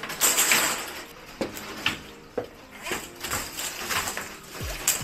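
Flexible corrugated plastic electrical conduit being handled and pulled through: irregular rustling scrapes with a few sharp clicks.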